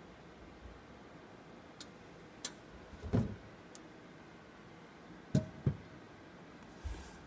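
Scattered light clicks and knocks over a faint steady hiss, with a louder thump about three seconds in and a quick pair of knocks a little after five seconds.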